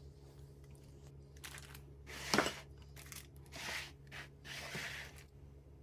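Hands rubbing seasoning over a raw turkey: a handful of short rustling, crinkling handling noises, the loudest about two and a half seconds in.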